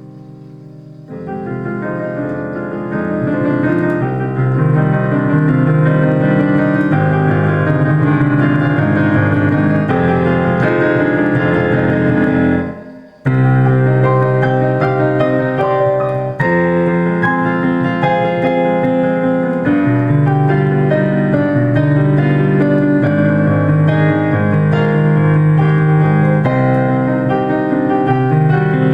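Solo piano playing a melody over low chords. A held chord dies away before the playing picks up about a second in and grows louder. About halfway through it breaks off briefly, then comes back in at full strength.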